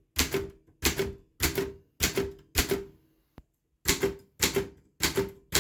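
Optima Elite manual typewriter being typed on at a slow, even pace, keys tested one by one. Each keystroke is a sharp double clack with a short metallic ring, a little under two a second. The typing pauses for about a second midway, then resumes.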